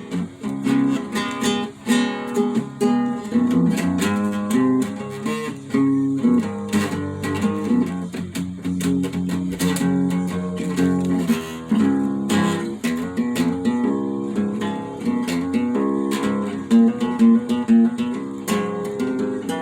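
Acoustic guitar playing, a continuous run of strummed and picked notes.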